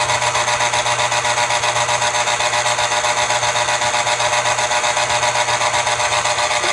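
Black & Decker electric citrus juicer's motor running steadily, turning the reamer while an orange half is pressed down on it, a steady whir with a fast, even pulsing.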